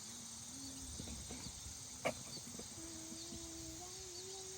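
Steady high chorus of crickets and other insects with small repeated chirps, under a faint steady hum. One sharp knock about two seconds in.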